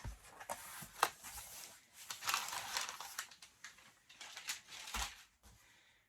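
Cardboard box being opened by hand and its contents handled: a few sharp knocks and clicks, with rustling and crinkling of packaging in between.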